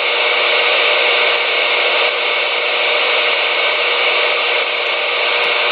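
A CB radio speaker giving out a steady loud hiss of static from an open carrier, with a faint steady tone under the noise.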